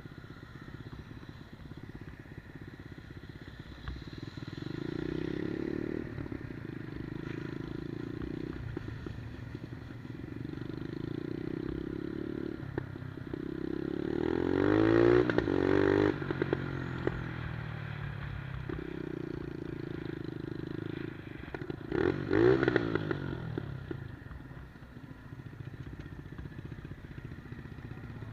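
A 110cc Monkey-style minibike's single-cylinder four-stroke engine running as it is ridden, its note rising and falling with the throttle. It grows loudest twice, about halfway through and again near 22 seconds, with the pitch climbing and then dropping as it passes close by.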